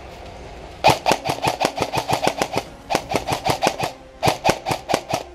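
Airsoft rifle firing in rapid strings of shots, about seven a second: a long string about a second in, then shorter ones.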